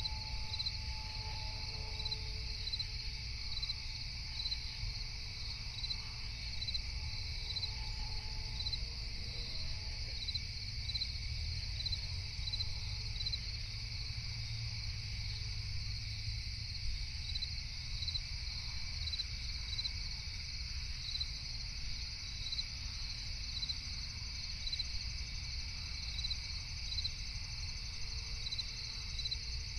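Crickets chirping steadily, a high continuous trill with a regular pulsing beat, over a steady low rumble.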